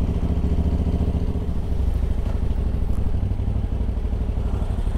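KTM 990 SMT's V-twin engine running steadily, its note shifting slightly about a second and a half in.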